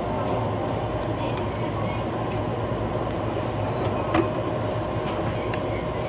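Steady mechanical hum and hiss of convenience-store machinery, with a few light clicks and one louder knock about four seconds in.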